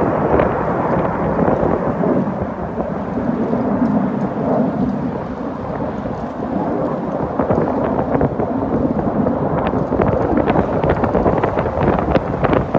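Jet engine noise from a formation of Saab JAS 39 Gripen fighters passing overhead: a loud, deep rumble that eases a little midway and builds again, with sharp crackles in the last few seconds.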